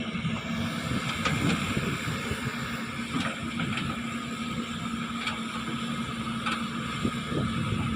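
Excavator engine running steadily, with scattered knocks and scrapes every second or two.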